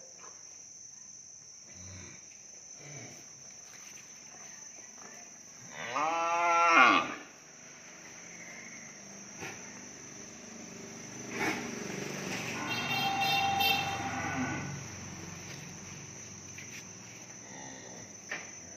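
Cattle mooing: one loud, drawn-out moo of about a second, rising and falling in pitch, about six seconds in. A steady high insect drone runs underneath.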